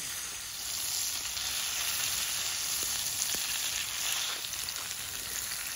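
Steaks sizzling in a frying pan on a portable gas stove, the sizzle growing louder about half a second in. A couple of faint clicks near the middle.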